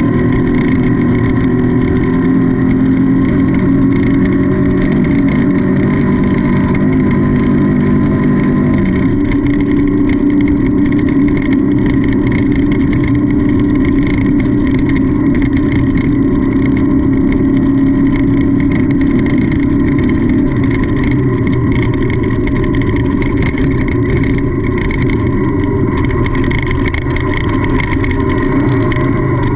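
Off-road race car engine running hard at a steady, loud level, heard onboard, with the engine note shifting about nine seconds in.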